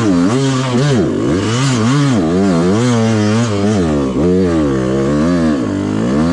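2020 Yamaha YZ125X two-stroke single-cylinder engine revving up and down over and over as the dirt bike is ridden over rough trail, its pitch climbing and falling roughly once or twice a second.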